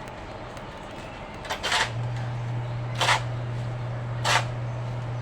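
Repeated blows of a hand tool on building material, about one every second and a half, the first one doubled. A steady low hum starts about two seconds in.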